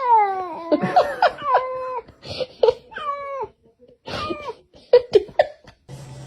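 Cat meowing repeatedly in drawn-out calls, several sliding down in pitch, with short breathy noises in between. Music starts near the end.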